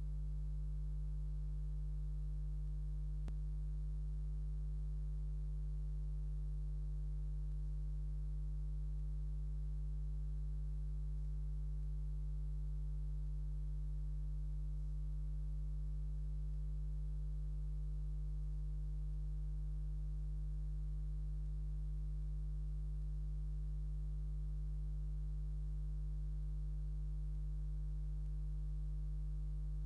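Steady low electrical hum: one unchanging deep tone with fainter overtones above it, and no other sound.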